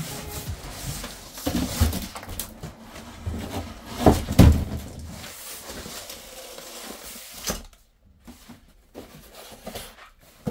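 Cardboard box and packaging being handled as a large RC truck is lifted out: rustling and scraping with several knocks, the heaviest about four seconds in, then much quieter for the last few seconds.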